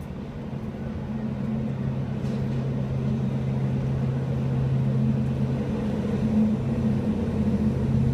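Diesel engine of a Matisa track tamping machine approaching the crossing: a steady drone that grows gradually louder.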